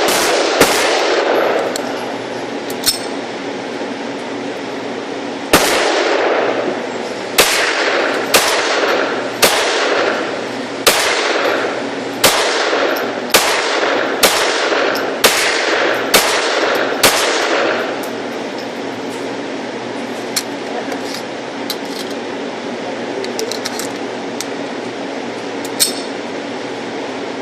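Pistol fired in a steady string of about eleven shots, roughly one a second, each with a ringing echo, after a single shot near the start. The last part holds only a few faint distant shots over a steady low hum.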